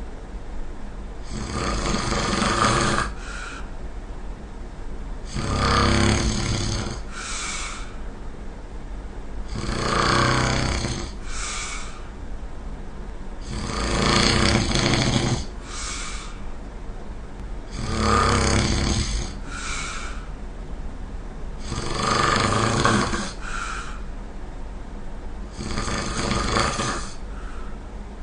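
A person snoring loudly and rhythmically, about seven snores one every four seconds, each long rasping snore followed by a short, softer puff of breath.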